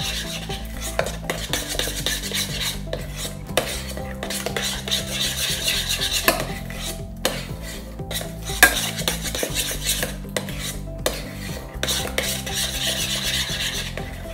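A metal spoon stirring and scraping thick hummus around a stainless steel pot, with frequent clinks of the spoon against the pot's side.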